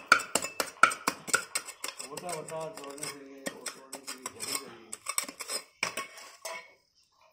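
A metal hand hoe (khurpa) striking and scraping into broken concrete and gravel while digging a hole. A quick run of sharp clinks and scrapes, about four a second, stops just before the end.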